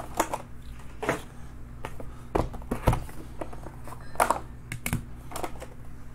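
Hard plastic card cases clicking and knocking as they are pulled from cardboard boxes and set down on a stack, with the rustle of box flaps; about a dozen irregular clicks, the loudest near the middle.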